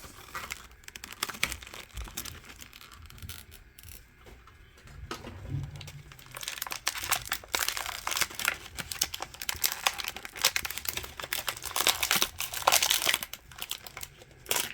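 Plastic packaging crinkling and crackling as a diecast model car is worked out of a tight package. The crackles are sparse at first and come thick and fast from about halfway.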